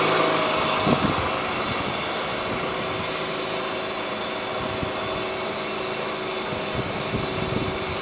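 Mitsubishi 4G63 DOHC fuel-injected inline-four engine idling steadily, with no revving. It gets quieter over the first couple of seconds, and there is a single light knock about a second in.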